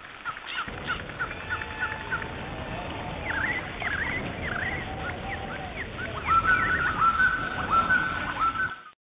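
Several birds chirping and calling from a stock nature-sound recording: short quick sweeping notes over a steady background hiss. From about six seconds in, a louder bird repeats a rising call many times, and the sound cuts off just before the end.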